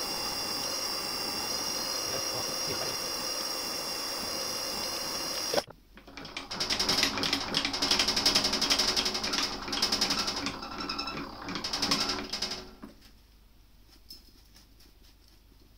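A milling machine running steadily with a 4 mm end mill cutting metal, which stops abruptly about five and a half seconds in. Then comes several seconds of irregular scraping and brushing as metal chips are swept off the vice.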